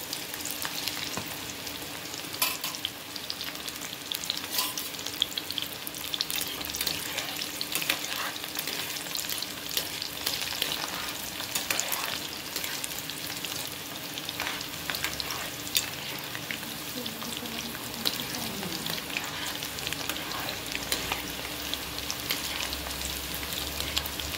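Cornflour-coated boiled chickpeas deep-frying in hot oil in a pan: a steady, dense sizzle full of sharp crackles and pops, with a slotted spoon stirring through the oil.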